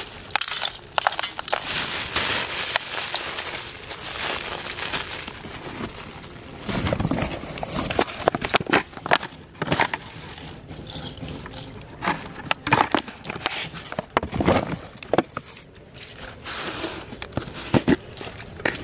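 Hands mixing and crumbling fish bait in a steel bowl, with irregular crackling, scrunching and clicking handling sounds.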